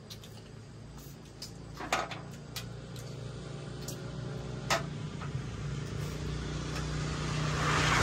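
A motor vehicle's engine approaching, its steady low hum growing louder throughout, with a few sharp clicks along the way.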